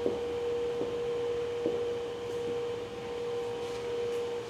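Room tone: a steady, single-pitched mid-range hum with a few faint clicks.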